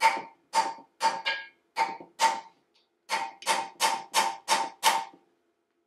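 Brass hammer tapping a makeshift seal driver, metal on metal, to drive the inner axle oil seal into a Dana 25 front axle housing. Each blow has a short metallic ring. About six steady blows come first, then after a brief pause about seven quicker ones, and then the tapping stops.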